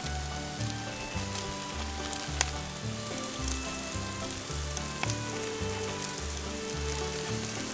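Bierock filling of sausage, onion and shredded cabbage sizzling and crackling in a skillet on a camp stove while coleslaw mix is poured in, a steady hiss with fine pops throughout.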